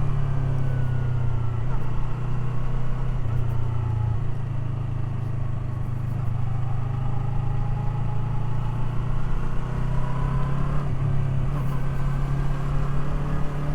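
Yamaha R3's parallel-twin engine running steadily while riding, its note stepping to a different pitch a few times, around two, four and eleven seconds in.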